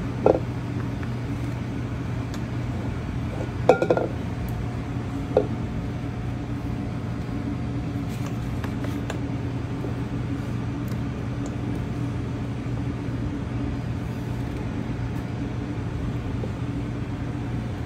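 Steady mechanical hum of kitchen equipment. Over it come a few light knocks and scrapes of a spatula against a stainless-steel bowl as pastry dough is scooped into a cloth piping bag. The loudest knocks come about four seconds in.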